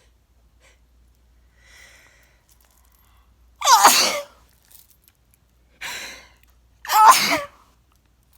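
A person sneezing twice, loudly, each sneeze ending in a voiced cry that falls in pitch. The sneezes are about three seconds apart, with a shorter, breathier sound between them.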